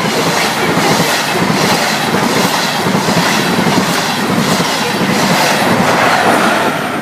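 Passenger train passing close by on the main line, a steady loud rush with wheels clattering regularly, about twice a second.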